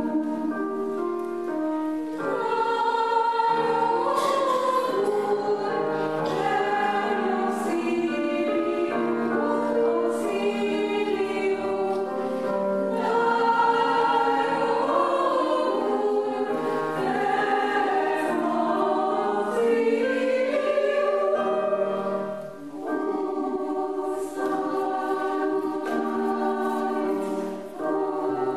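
Women's choir singing in several parts, sustained chords moving phrase by phrase, with two brief breaks between phrases near the end.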